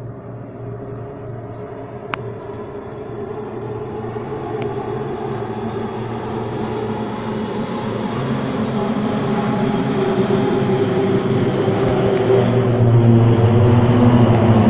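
A large formation of military aircraft flying over. Their engine rumble builds steadily louder as they approach.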